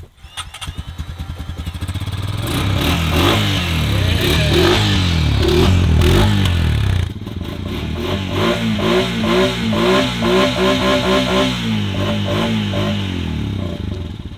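Honda Rancher ATV's single-cylinder engine revving up and down after being swamped in a pond, still pushing water out of its exhaust. About halfway through it changes to a quick run of short throttle blips.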